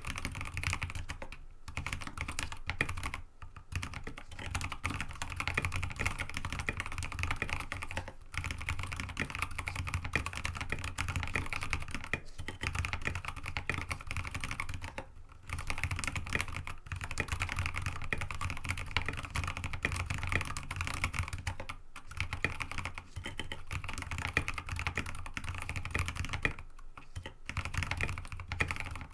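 Mechanical keyboard (mStone Groove T87A with Kailh Box Ancient Gray switches, aluminum plate and MA-profile keycaps) being typed on steadily and quickly, with a few brief pauses.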